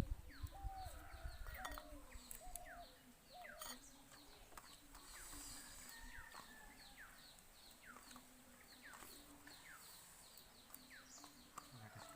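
Faint bird calls: many short chirps falling in pitch, a few each second, with a few lower wavering calls in the first few seconds.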